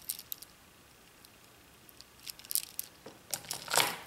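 Chunky beaded bracelet being handled: beads clicking against each other in short clusters near the start and again about two seconds in, then a louder rustle near the end as it is moved away.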